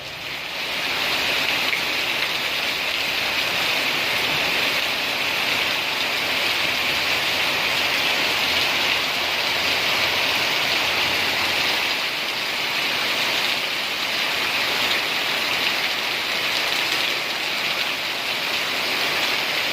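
Rain falling steadily, a dense even hiss that swells over the first second and then holds.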